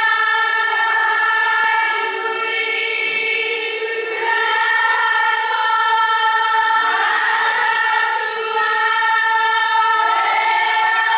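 Children's kapa haka group singing a Māori waiata together in unison, in long held notes.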